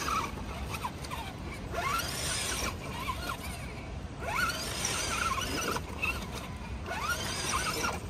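Axial Bomber RC crawler's electric motor and geartrain whining in several short throttle bursts, the pitch rising with each burst, as it climbs a steep rock face.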